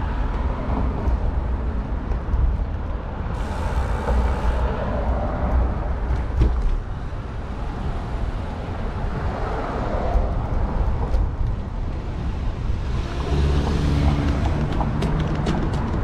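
City street traffic: cars driving past on a multi-lane road, over a steady low rumble. A deeper engine hum comes in near the end.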